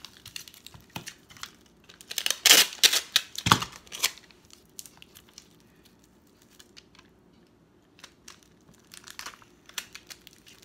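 Clear packing tape ripped off a handheld tape dispenser in a loud rasping pull about two seconds in, ending in a sharp snap as it is cut off. After that, light crinkling of plastic wrap as the tape is pressed around the wrapped roll.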